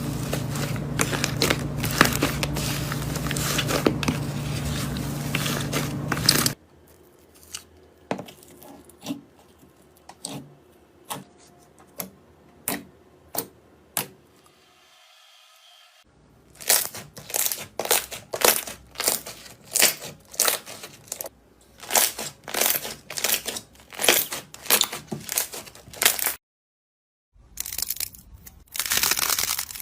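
Slime being squeezed and poked, crackling and crunching in a run of short ASMR clips. At first the crackling is dense and continuous. Then comes a quieter stretch of sparse clicks, then crackly squeezes about one or two a second, broken by a brief silence near the end.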